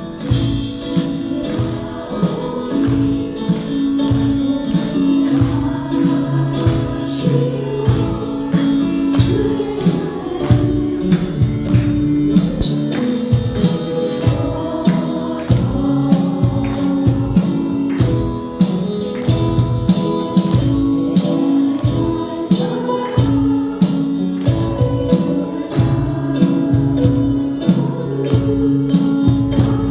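A group of voices singing a Christian praise song in Spanish, with a tambourine and a steady strummed beat.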